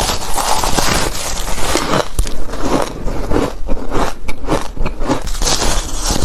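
Close-up crunching and chewing of hard ice, with dense, irregular crackling bites and squeaky scraping of ice between the teeth.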